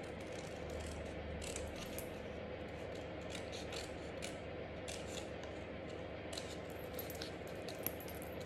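Scissors snipping through red cardstock in a series of short, irregular cuts, with a small metal charm hanging from the scissor handle jingling along. A steady low hum runs underneath.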